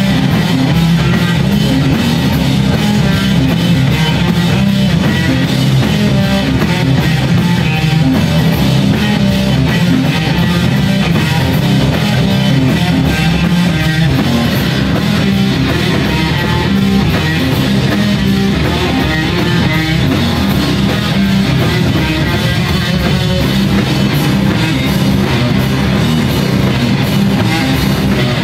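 Live rock band playing loud, heavy rock on electric guitar, bass guitar and drum kit.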